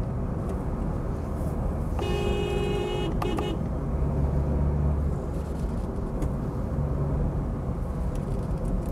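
Steady engine and road noise inside the cabin of a Maruti Suzuki Baleno under acceleration (its 1.2-litre petrol engine). About two seconds in, a car horn sounds for about a second, followed by two short toots.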